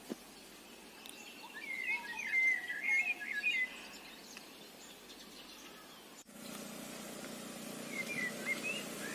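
Birds chirping in quick, rising and falling calls, loudest between about two and four seconds in. About six seconds in the sound cuts abruptly to a steady low hum of a motor scooter engine, with a few more bird chirps over it.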